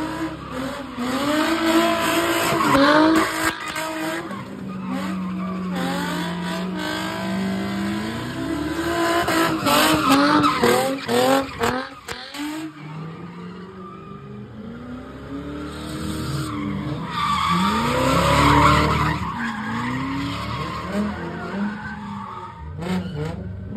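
Car engines revving up and down over and over while the tyres squeal and skid, as at a street sideshow where cars spin donuts.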